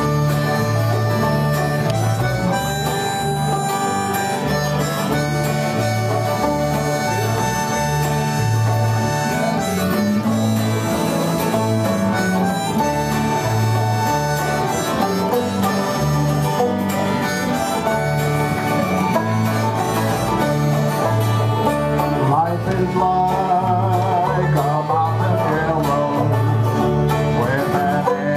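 Old-time string band playing an instrumental tune: banjos picking, acoustic guitar strumming and a bass guitar keeping a steady stepping bass line, with harmonica on the melody.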